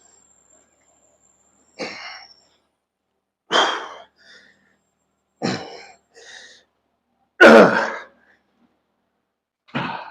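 A man's short, forceful breaths and grunts of effort while lifting weights, one burst roughly every two seconds, with the loudest about seven and a half seconds in.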